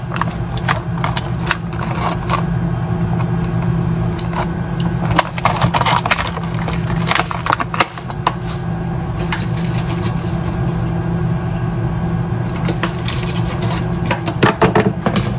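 Microwave oven running with a steady low hum, with scattered clicks and knocks of things being handled nearby.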